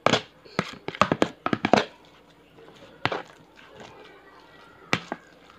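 A spoon clicking and knocking against a container while ground-meat filling is mixed. A quick run of clicks comes in the first two seconds, then two single knocks, about three and five seconds in.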